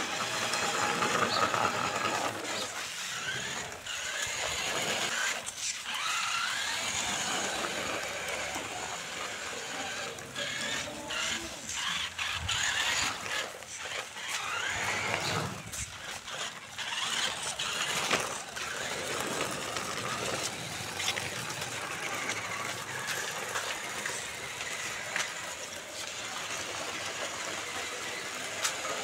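Small RC rock crawler's electric motor and gearbox whining, the pitch rising and falling with the throttle, with scattered clicks from the wheels and the towed trailer rolling on concrete.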